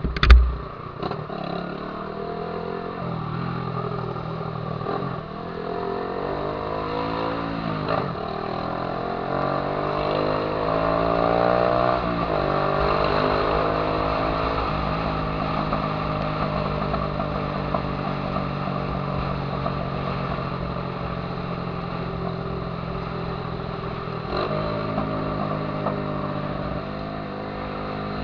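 Honda Titan 150 single-cylinder four-stroke engine with a loud viúva-negra aftermarket exhaust, accelerating through the gears: the pitch climbs, drops back at a shift around eight seconds and again around twelve, then holds steadier while cruising. A loud low thump comes about half a second in.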